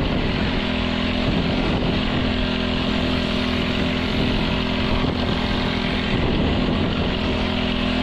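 Small engine of a power sprayer running steadily at a constant speed while spraying weeds.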